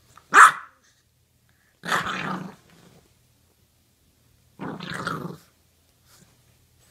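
English bulldog puppy giving one short, sharp bark, then two longer, gruff growling barks.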